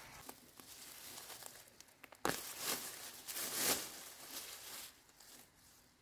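A sharp knock a little over two seconds in, followed by about a second and a half of crinkling, rustling handling noise.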